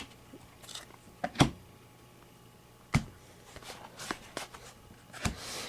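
Trading cards being handled and set down: faint rustles of card stock with three sharp taps spread through it.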